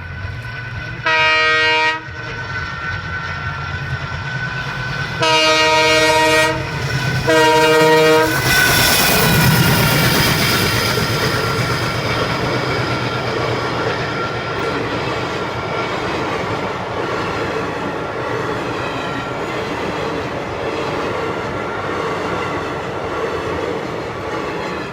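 Train horn sounding three blasts, a short one and then two longer ones close together. Then the train runs through the level crossing with loud rumbling and clickety-clack of wheels on the rails, slowly fading as it goes on passing.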